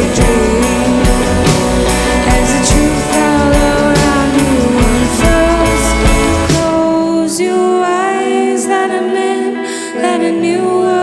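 Live song with a woman singing lead over electric guitar and upright double bass. The deep low end drops out about six and a half seconds in, leaving the voice and guitar.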